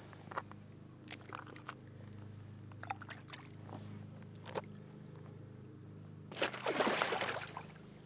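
Common carp being released in shallow water: small splashes and drips as it is held at the surface, then a loud splash about six seconds in as it kicks free and swims off.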